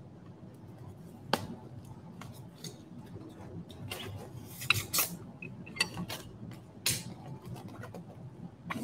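Handling sounds of unboxing teaware: scattered light clicks and knocks of small ceramic cups and pieces being picked up and set down, with a few short rasps from the taped foam shipping box being worked open.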